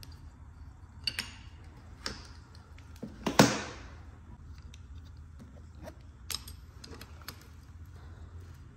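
Scattered small clicks and clinks of parts and hand tools being handled at a dirt bike's handlebar while the grip and hand guard are fitted; the loudest is a sharp clink with a short ring about three and a half seconds in. A low steady hum runs underneath.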